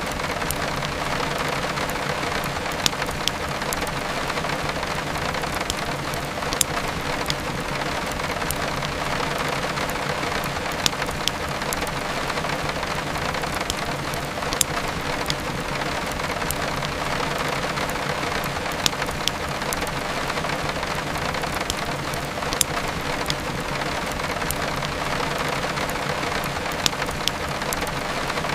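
Steady heavy rain, with sharp crackles from a burning wood fire every few seconds.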